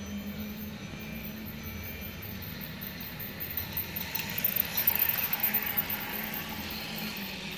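Toy steam train running on plastic track: a clicking, rattling run that grows louder as the locomotive and tank car pass close by, about four to six seconds in, over a steady low hum.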